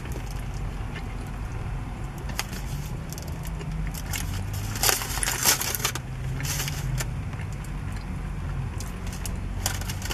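Aluminium foil around a burrito crinkling in several short crackly bursts as it is peeled back, over a steady low hum.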